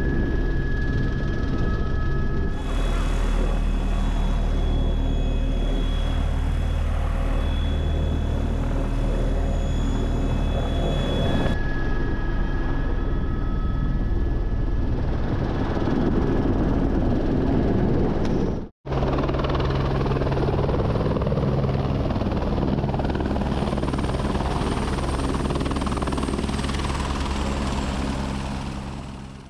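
Helicopter turbine and rotors running steadily, heard from inside the cabin in flight. The sound shifts abruptly twice, drops out for a moment about two-thirds in, and fades at the end.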